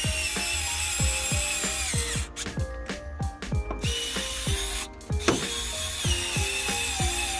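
A cordless power drill running in spells over background music with a steady beat. The drill's whine cuts off about two seconds in, comes back near four seconds, and spins up again with a rising whine just after five seconds.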